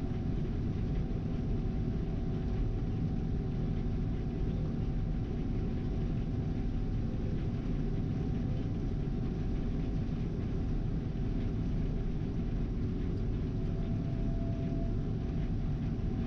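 R72 combine harvester running steadily while harvesting soybeans: a constant low engine rumble with a faint, even machinery hum over it.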